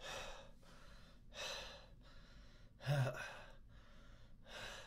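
A man breathing hard, four audible breaths about a second and a half apart; the third, about three seconds in, is the loudest and voiced, like a gasp.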